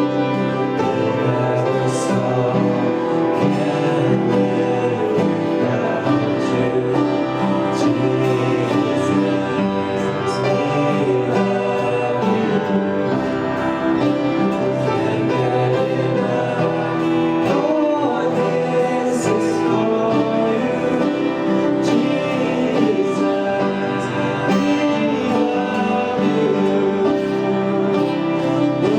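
Live church worship band playing an instrumental passage of a worship song, guitar and other instruments with occasional cymbal hits and some singing.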